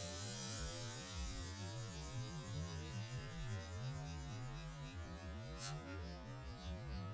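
Faint low, wavering hum with light hiss, and one brief faint tick late on.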